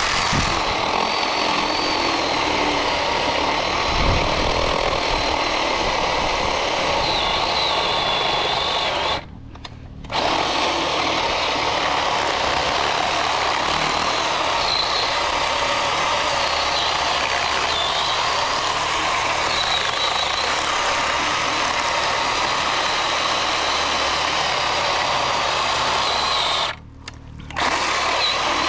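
Battery-powered electric chainsaw running steadily as it cuts into a tree, cutting out briefly twice, about nine seconds in and again near the end.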